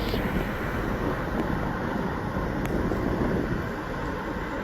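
Steady low rushing noise with no distinct events.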